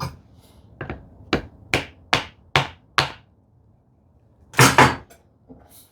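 Light hammer taps on a handmade rebate plane, setting its iron: six even taps about two a second, then two harder strikes in quick succession.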